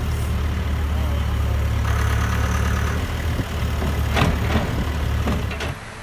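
Telehandler's diesel engine running steadily with a heavy low hum, with two sharp knocks past the middle; the engine sound drops away just before the end.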